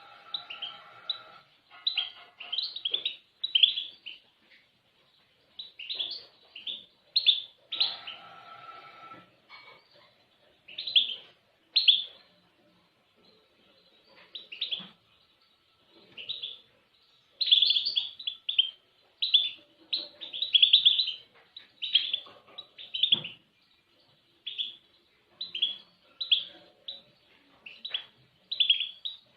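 Songbird chirping: short, high chirps and twitters in quick bursts with brief pauses between them.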